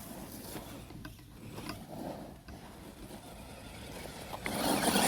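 FTX Outlaw RC crawler's drivetrain whirring, with a louder rough noise starting a little before the end.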